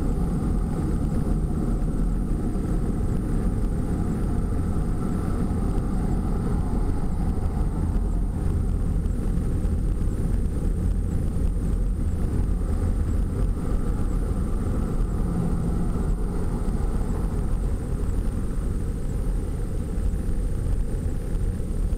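Steady low road and engine rumble heard inside a moving vehicle's cabin while it drives along a highway, with a faint steady high-pitched whine above it.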